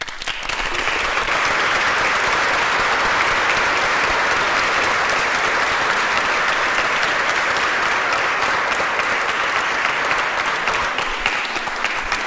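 Large audience applauding: dense, steady clapping that starts abruptly, then thins near the end into scattered individual claps.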